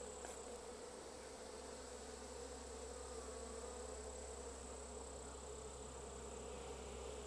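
Steady hum of Japanese honeybees buzzing over the open hive's frames.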